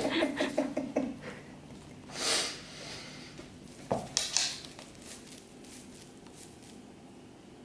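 A dry pampas grass plume rustling and swishing through the air, with cats' paws scuffling on a wooden floor. There is one long swish about two seconds in and a sharp knock about four seconds in, followed by a short rustle.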